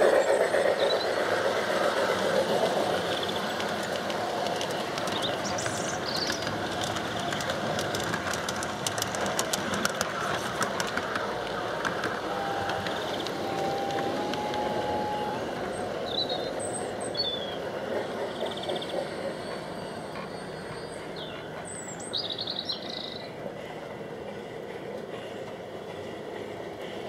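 G-scale garden model train running on its track: a steady rolling rumble of wheels on rail that fades over time, with a quick run of clicks around the middle. Birds chirp faintly in the second half.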